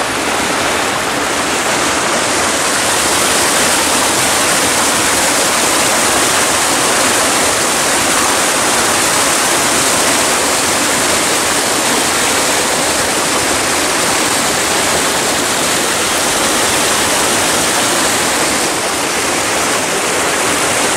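River water rushing over rocks, a loud steady rush without a break.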